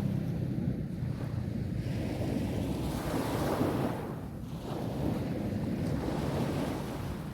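Sea waves washing onto a beach: a steady surf wash with one wave surging up about three seconds in and falling away about a second later. Wind buffets the microphone as a low rumble underneath.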